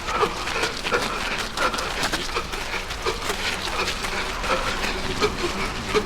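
A runner's heavy, wheezing breathing while running, short whistling breaths about two or three a second, over footfalls and wind rumble on the microphone.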